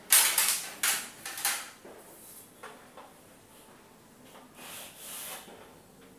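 Rubbing strokes on a chalkboard: a quick run of several loud strokes in the first second and a half, then a few fainter ones later, the longest about five seconds in.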